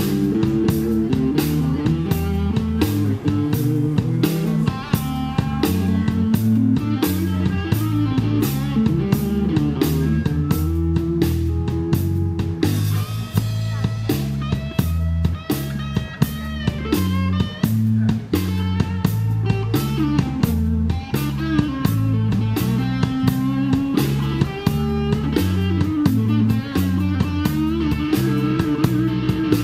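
Live blues band playing an instrumental passage: electric guitars over a stepping bass line and a steady drum-kit beat.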